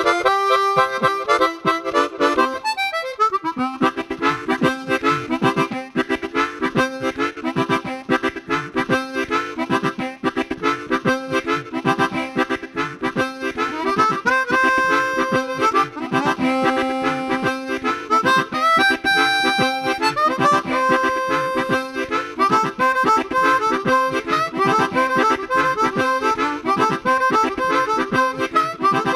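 Chromatic harmonica playing a fast, busy melody of quick note runs with some held notes.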